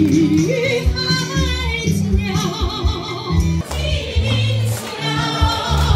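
A small group of women singing a melody with vibrato into a microphone, over an instrumental accompaniment with a bass line and a steady beat.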